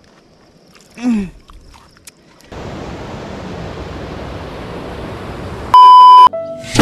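A brief voice sound about a second in, then from about two and a half seconds the steady rush of a swollen, muddy river in flood. Near the end a loud test-card beep, one steady tone lasting about half a second, over a colour-bar glitch transition.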